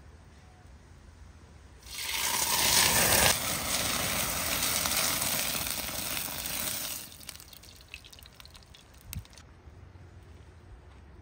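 Water pouring in a steady stream for about five seconds. It starts suddenly about two seconds in, is loudest for the first second and a half, then stops, and a light knock follows near the end.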